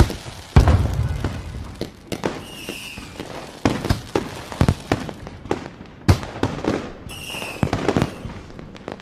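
A rapid, irregular series of sharp bangs and crackling pops, with a deeper boom just after the start and two short high whistles a few seconds apart.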